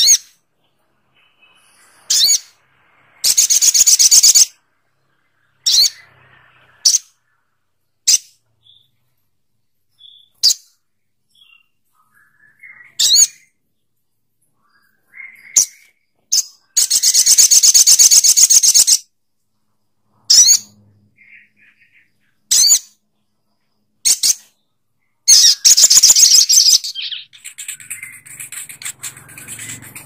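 Male olive-backed sunbird singing: short, sharp, high call notes every second or two, broken three times by a rapid, high trill lasting a second or two.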